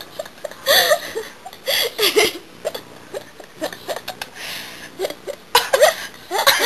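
Baby making short, high-pitched vocal sounds in separate bursts, then sneezing about five and a half seconds in.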